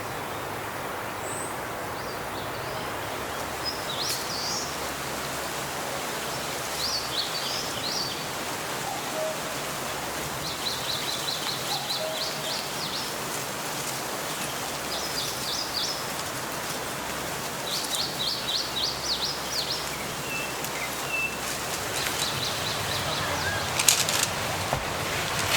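Steady rush of wind through forest trees, with small birds calling over it: short chirps early on, then three bursts of quick twittering trills in the middle. A few sharp clicks near the end.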